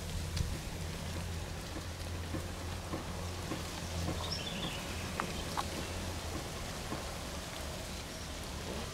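Steady outdoor background hiss over a low hum that fades about halfway through, with a few faint short chirps and light ticks.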